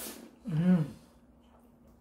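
Ramyeon noodles being slurped, fading out just after the start, then a short hummed 'mm' from one of the eaters about half a second in, the loudest sound, rising and falling in pitch.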